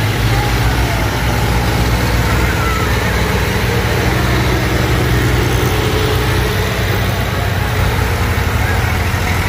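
Tractor diesel engines running in the mud, a loud, steady low drone.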